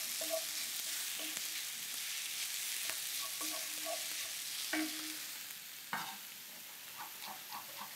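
Mushrooms and grated pumpkin sizzling in a frying pan while a wooden spoon stirs them. About six seconds in the sizzle gets quieter, and a chef's knife knocks a few times on a wooden cutting board as it chops boiled chestnuts.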